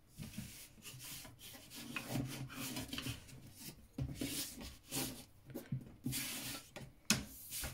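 Clear plastic set squares sliding and rubbing over drawing paper in irregular scraping strokes as they are repositioned, with one sharp tap near the end.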